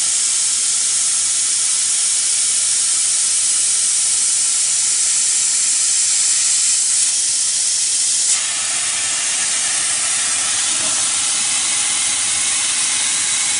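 CO2 laser cutting machine cutting 18 mm plywood: a loud, steady hiss of air and machine noise at the cutting head. About eight seconds in the hiss changes abruptly to a duller, lower rush.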